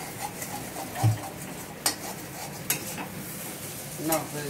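A metal spoon stirring and scraping dried fish in a frying pan on a gas stove while the food sizzles, with two sharp clinks of the spoon against the pan about two and three seconds in.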